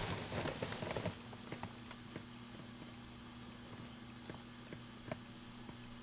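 Steady low electrical buzzing hum with a fainter, higher tone above it, like mains hum. A flurry of small clicks and rustles comes in the first second, then a few scattered ticks.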